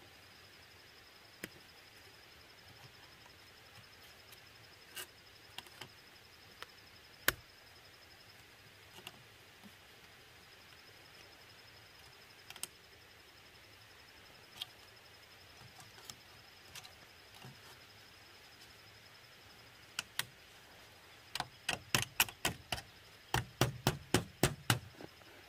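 Pliers and steel wire clicking as the wire is twisted tight around a tree trunk and a bamboo lattice panel: scattered single clicks, then a quick run of sharp clicks near the end.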